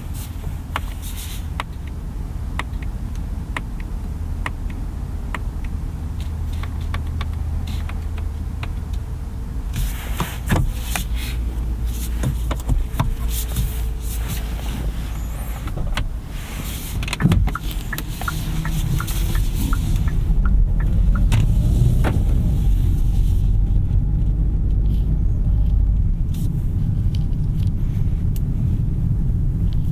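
Low road and tyre rumble inside the cabin of a 2021 Kia K5 Hybrid sedan on the move, growing louder about two-thirds of the way through, with scattered clicks and knocks.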